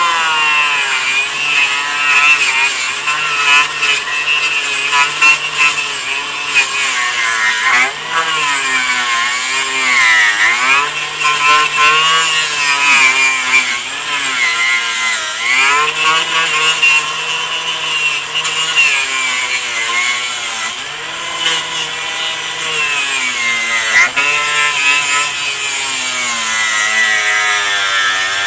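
Angle grinder with a wire wheel running against the surface, scrubbing off old mastic. Its motor whine keeps dipping and rising in pitch as the wheel is pressed on and eased off, over a steady scraping rasp.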